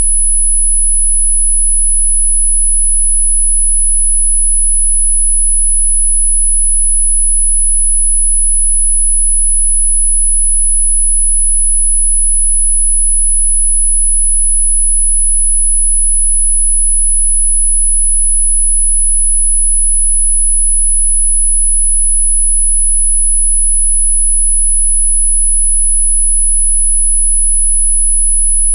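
A single electronically generated pure sine tone, very high-pitched, held perfectly steady and unbroken, played as a 'healing frequency' for hiccups, with a much fainter low hum beneath it.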